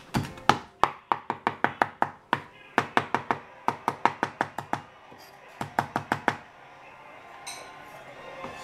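Chef's knife chopping basil on a plastic cutting board: quick runs of sharp knocks, several a second, that stop about six seconds in.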